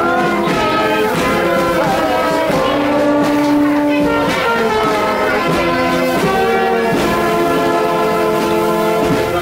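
A brass band playing a tune, led by trombones and other brass, with notes held for a second or two at a time.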